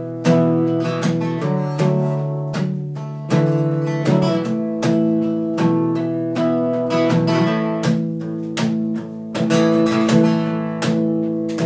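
Acoustic guitar strummed in a steady rhythm, the chords changing every second or so.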